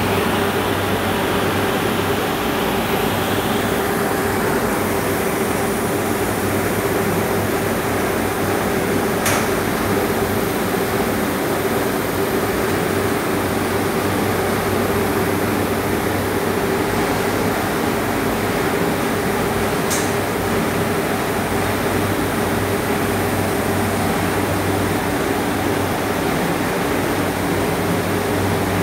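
Steady hum and hiss of running plant machinery on an aluminium anodizing line, with a low drone and a steadier, higher tone under it. Two faint ticks come about a third and two thirds of the way through.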